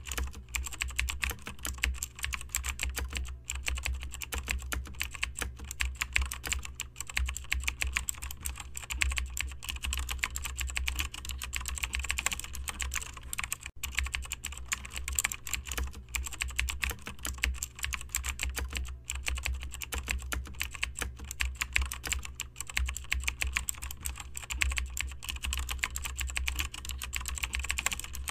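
Continuous rapid typing on a computer keyboard, many keystrokes a second with brief pauses, over a steady low hum.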